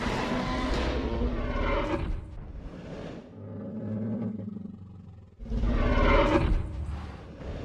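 Two long, loud Tyrannosaurus rex roars, a film-style dinosaur sound effect, with a quieter low rumble between them.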